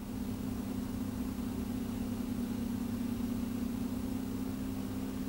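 Steady low machine hum with two constant low tones and no change throughout.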